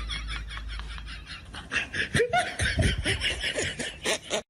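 A person laughing in a quick run of snickering bursts, picking up about a second and a half in.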